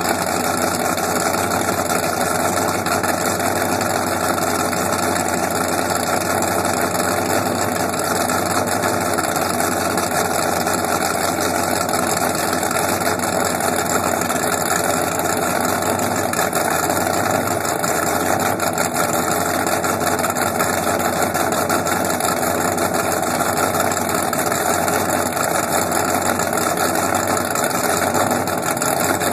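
Twin inboard engines of a performance powerboat idling steadily through open transom exhaust pipes. They are run out of the water on the trailer, cooled by garden-hose water.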